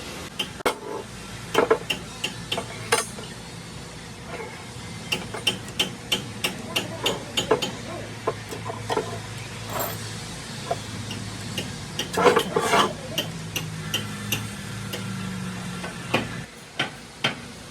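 Hand tools tapping and clinking on metal truck parts, light strikes coming a few a second at times, with a low steady hum underneath that stops near the end.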